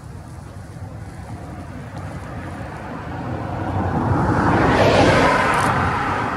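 A vehicle passing close by, its rushing noise swelling to a peak about five seconds in, then easing off.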